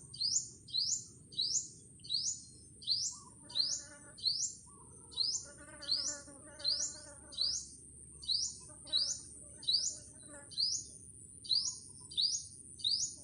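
Bird chirping, a short rising chirp repeated evenly about twice a second, over a steady high-pitched whine. A lower, wavering bird call joins in a few times in the middle.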